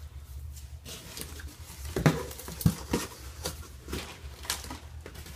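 Handling noises from a muffler and its cardboard box: a series of light knocks and taps about two seconds in, the loudest near the start of the run, over a low steady hum.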